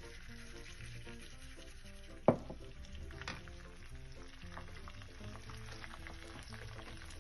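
Tempering sizzling and crackling in hot oil: mustard seeds, dals, garlic, curry leaves and red chili being sautéed. A sharp clink comes about two seconds in. Soft background music plays throughout.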